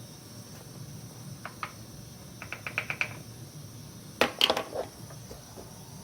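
Light clicks and taps in a few short clusters, a quick run of about six around the middle and the loudest cluster about four seconds in, over a steady low hum.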